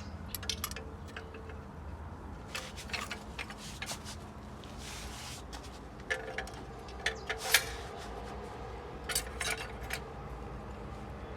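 Steel automatic-transmission parts clinking and knocking together as they are handled and fitted, in irregular clusters of sharp clicks, the loudest about seven and a half seconds in. A faint steady hum runs underneath.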